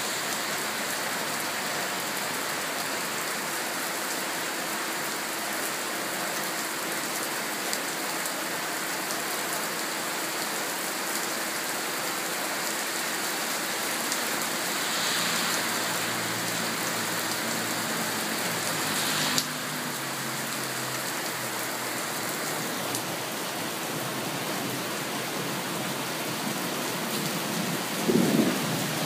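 Steady heavy rain falling, with a faint low rumble of distant thunder about two-thirds of the way in and a single sharp crack. Near the end a loud, low thunder rumble begins.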